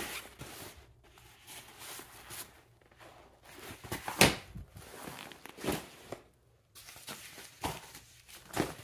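Padded nylon hockey pants being handled and turned over by hand: fabric rustling, with several short, louder swishes.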